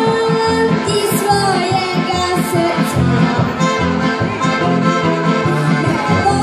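Live band playing Slovenian folk-pop, the accordion to the fore over brass, acoustic guitar and drums, with a few cymbal crashes.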